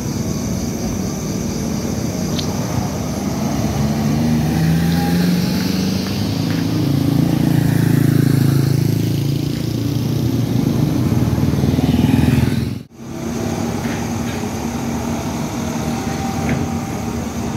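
Road traffic: motorcycle and car engines running as they pass, swelling and fading. The sound cuts out for an instant about thirteen seconds in.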